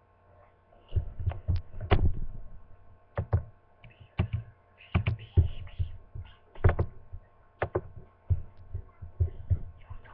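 Irregular low thumps and knocks close to the microphone, a dozen or more at uneven spacing, over a faint steady hum.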